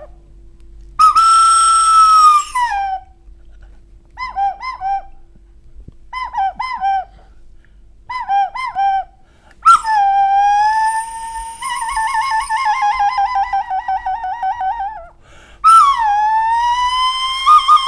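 A small blown whistle played as a foley effect for eerie forest sounds: a long held note that drops at its end, three pairs of short chirping notes, then long sliding calls that break into a fast warble.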